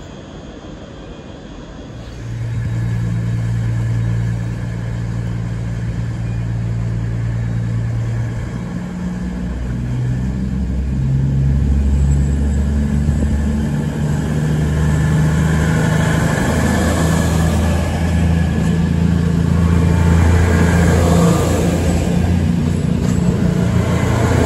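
Diesel train's engine running under power. Its note comes in loudly about two seconds in, shifts pitch in steps several times and grows louder, with a rising rumble and rush as the train moves.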